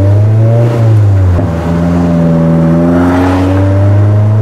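2006–08 Mazda MX-5 NC Miata's 2.0-litre four-cylinder engine pulling under acceleration, heard from inside the cabin, its pitch slowly rising. About a second and a half in it dips briefly as a gear is changed on the 6-speed manual, then pulls again.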